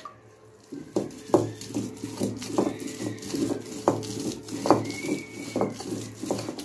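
Stone roller rolled back and forth on a flat grinding stone (ammi kal), grinding tamarind into dried red chili paste for chutney. Rough rubbing strokes start about a second in and repeat a little over twice a second.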